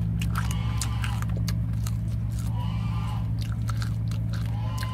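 Crunchy chewing of fried snake with crisp, fried-crunchy skin: a rapid, irregular series of sharp crunches.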